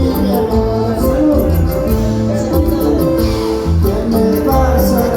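Latin American band music with a heavy bass line, plucked guitar and a steady beat of high percussion strokes.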